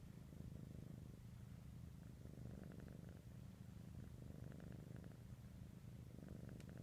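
A Norwegian Forest Cat purring faintly and steadily, a low continuous rumble, while it kneads.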